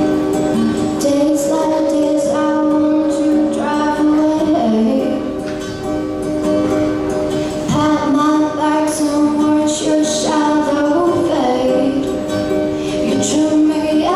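A girl singing into a microphone with long held notes while strumming an acoustic guitar: a solo acoustic pop song.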